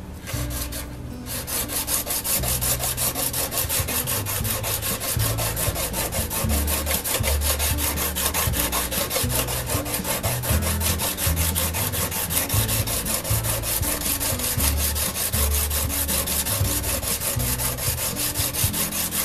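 A brazed tungsten carbide lathe tool rubbed back and forth on a diamond sharpening plate in rapid, even strokes, starting about a second in. The plate is mostly flattening the tool's steel body so far and barely cutting into the carbide.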